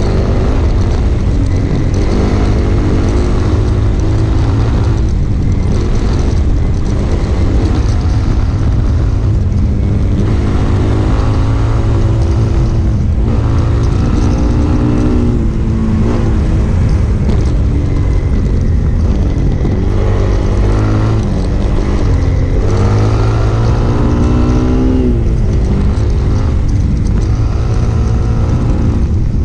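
Single-cylinder four-stroke motorcycle engine ridden hard on a dirt trail. Its pitch climbs through each gear and drops at the shifts several times, over a steady wind rush on the bike-mounted microphone.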